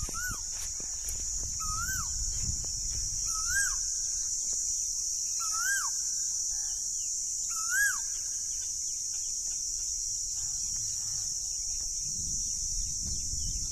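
A bird calling out in the open: one short note, rising and then dropping sharply, repeated about every two seconds, six times before it stops. Underneath there is a steady high-pitched hiss and a low rumble.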